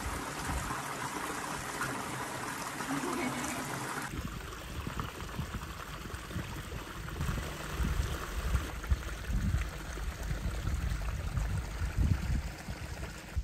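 Water running and trickling in a small rocky stream. About four seconds in the sound changes abruptly to a lower, unsteady rumbling outdoor ambience.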